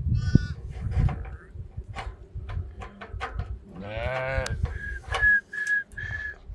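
Sheep bleating: a brief high bleat just after the start and one long bleat about four seconds in, then four short high-pitched calls in quick succession. Scattered knocks and a low rumble run underneath.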